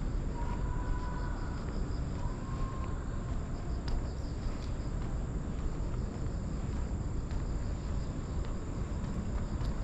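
Insects chirping in a steady high trill, with a faster pulsing layer beneath it, over a constant low rumble of street traffic.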